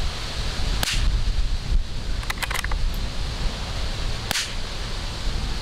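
Two shots from a Tikka T1X .22LR rifle, about three and a half seconds apart, with a quick run of clicks between them. Wind rumbles on the microphone throughout.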